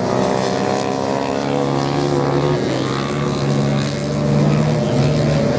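Several off-road motorcycle engines running hard together in a race, a loud overlapping drone whose main note drops about a second and a half in as the bikes change speed.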